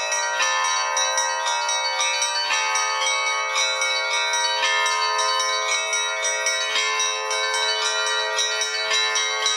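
Russian Orthodox bell ringing (zvon): a set of small and medium bells struck in a fast, continuous pattern, each tone ringing on under the next strikes, with no deep bass bell.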